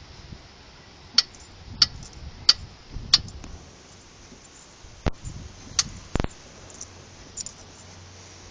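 Sharp metallic clicks from a VW Golf Mk4's shock absorber as it is pushed on its side: four about two-thirds of a second apart, then three more after a pause, the last a heavier knock. This is the click the owner traced the car's clicking over bumps and in turns to, in a shock only half a year old.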